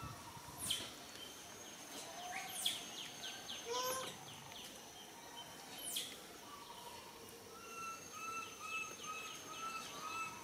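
Birds calling: a few sharp high whistles that drop quickly in pitch, quick runs of short falling notes, and from about two-thirds of the way in a series of about six short repeated notes. A thin steady high tone runs underneath.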